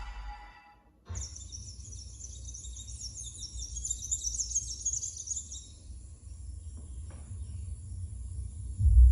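Film soundtrack played through a Bose Smart Soundbar 900 with Bass Module 700 and heard in the room. A deep bass rumble fades out, then after a brief silence birds chirp over a low rumble for about five seconds. Near the end a loud deep bass rumble swells.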